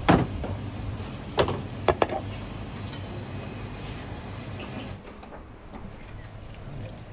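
A few sharp knocks and clatters of wooden and steel kitchen things being handled at a sushi counter, the loudest at the very start, then two more a little over a second later, over a steady low hum that drops away about five seconds in.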